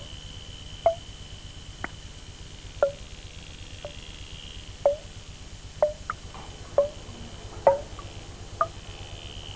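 Sharp ticks about once a second, each with a brief pitched ring, with one extra tick about six seconds in. A faint steady hum and a thin high whine run underneath.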